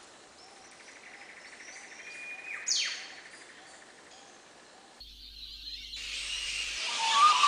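Backing sound effects: a rising whoosh about three seconds in, then from about six seconds a much louder hiss with short bird-like chirps.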